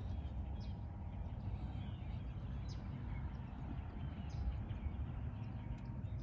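Low wind rumble on the microphone with a few faint, short bird chirps scattered through it.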